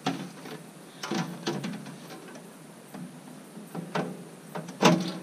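Metal clanks and rattles as a folding metal wind shield is opened out and set onto a slide-out camp kitchen bench, a few of the knocks ringing briefly, the loudest clank near the end.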